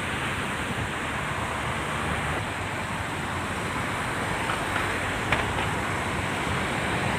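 Steady rushing noise of sea surf and wind, with wind rumbling on the microphone.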